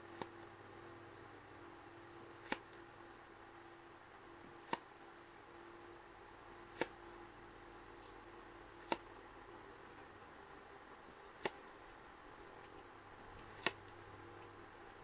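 Glossy photo cards being flipped one by one through a hand-held stack, each card giving a short, sharp click about every two seconds, seven in all, over a faint steady hum.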